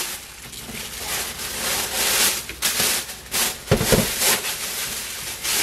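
Thin black plastic bag rustling and crinkling as it is wrapped around a lidded glass jar, with a dull thump a little under four seconds in.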